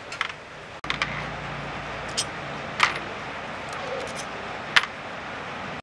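Small steel screws dropped one at a time into a metal parts tray: a few sharp clinks about a second apart, the last the loudest.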